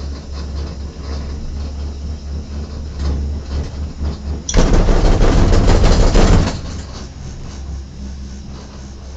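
Cable car gondola running over a support tower's sheave wheels: a sudden loud, rapid clattering rumble about halfway through, lasting about two seconds before fading. Around it, the steady low hum of the cabin riding the haul rope.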